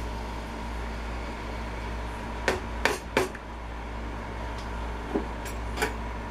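A plastic colander knocked against a stainless steel pot as drained watermelon rind is tipped and shaken into it: three sharp knocks about two and a half seconds in, then a few lighter taps near the end, over a steady background hum.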